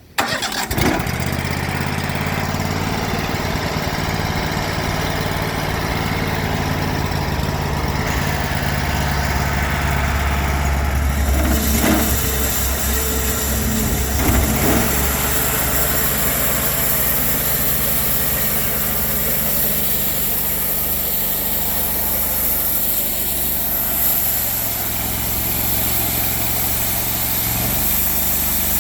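Cook's MP32 band sawmill's engine starting up abruptly and running steadily. From about eleven seconds in, a high hiss joins and the engine note changes as the band blade saws into a log.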